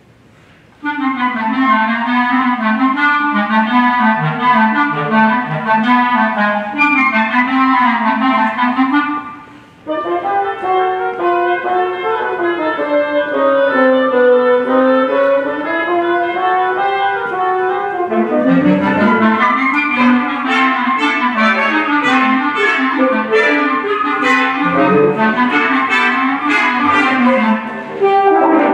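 Wind ensemble starting to play about a second in: quick, busy woodwind lines led by clarinets. There is a short break just before ten seconds, and the band grows fuller, with short accented notes, from about eighteen seconds.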